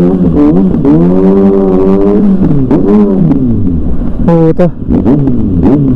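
Sport motorcycle engine revving hard, its pitch rising and falling several times as the bike accelerates and backs off while weaving through traffic. There is a short, sharper burst about four and a half seconds in.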